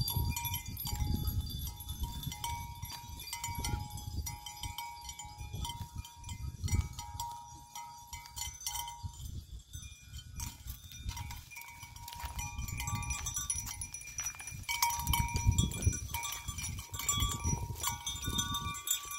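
A goat browsing a leafy shrub: irregular rustling and low bumps as it tugs at the branches and eats the leaves, busiest near the end. Faint thin ringing tones come and go in the background.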